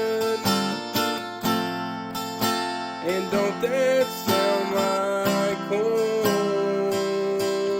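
Instrumental break in a gospel song. An acoustic guitar strums steadily under a held lead melody line that slides and bends between notes.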